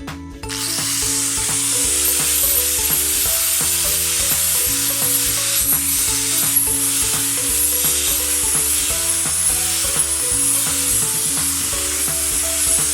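Food sizzling steadily in hot oil in a pan, starting abruptly about half a second in, with background music.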